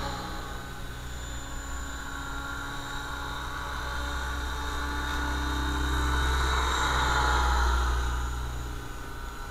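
Electric T-Rex 600 ESP model helicopter in flight, driven by a Kontronik Pyro 600 brushless motor: the steady thrum of the main rotor with a high whine from the drive. It grows louder about seven seconds in as it passes closer, then fades again.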